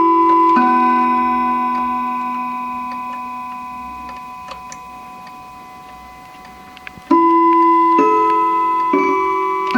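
German three-train chiming clock with a Franz Hermle movement sounding its chimes. Two notes are struck near the start and ring on, slowly dying away, while faint ticking shows through. About seven seconds in the chiming resumes, with notes struck about once a second.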